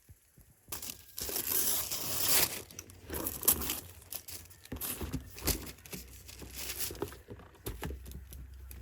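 Parcel packaging being torn open and handled: a long tearing rasp about a second in, then intermittent crinkling of plastic or paper wrapping and light taps.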